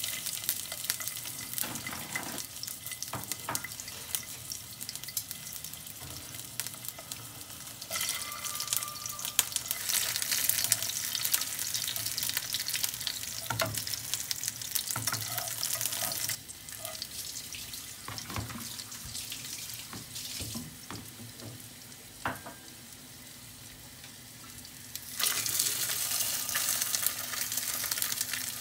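Garlic cloves sizzling in hot oil in a nonstick frying pan, with a few taps of chopsticks turning them. Near the end the sizzle jumps louder as a whole Waigeo sea perch is laid into the oil.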